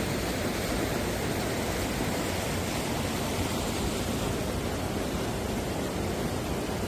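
Mountain stream water rushing over rocks, a steady even rush with no change.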